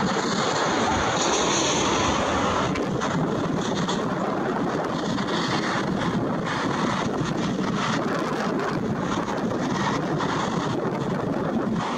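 Boeing 787-9's twin GEnx-1B turbofan engines at takeoff thrust during the takeoff roll, a steady loud jet noise heard from behind the aircraft as it rolls away down the runway.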